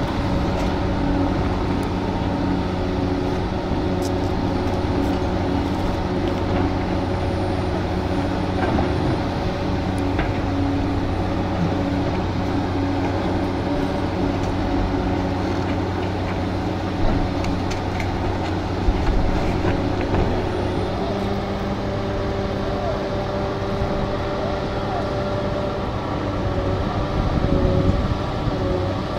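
Engine of heavy construction machinery running at a steady speed, with a few faint knocks over it.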